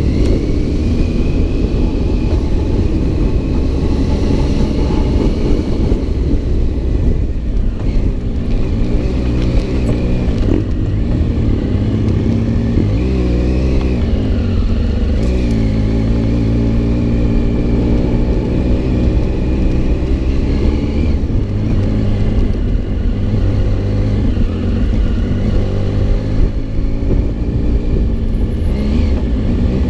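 Adventure motorcycle engine running under way off-road, its pitch rising and falling several times with throttle and gear changes, over a steady low rumble.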